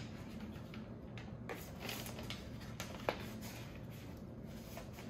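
Faint handling of the iPad Pro's packaging: soft rustling with a few light clicks and taps, the sharpest about three seconds in.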